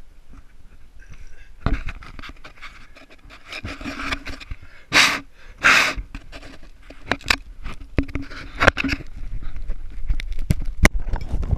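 Handling noise of an action camera moved about by hand: rubbing, scraping and clicking close to the microphone, with two loud rushing bursts about five seconds in.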